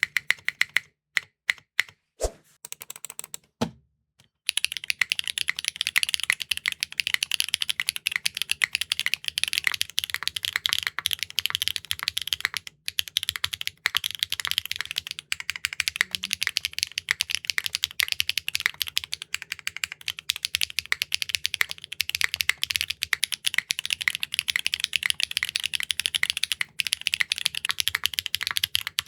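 Mechanical keyboard with clacky linear switches being typed on. A few separate keystrokes with short pauses, then from about four seconds in a fast, continuous run of clacks.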